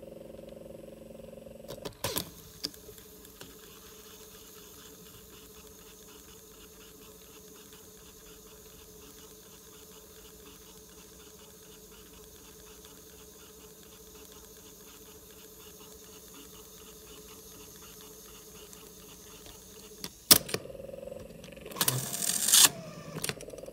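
Grundig CB 100/E cassette tape drive running with an opened cassette: a sharp click about two seconds in, then the steady running of the drive motor and turning reels. Another click and a louder clatter come near the end.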